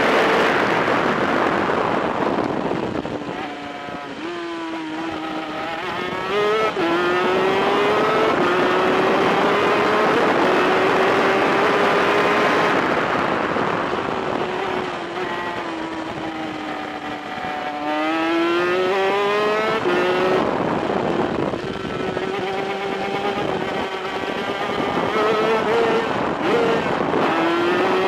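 A 250cc superkart's VM twin-cylinder two-stroke engine at racing speed, heard from on board. The engine note drops, then climbs in steps through the gears, drops again about halfway through and climbs once more.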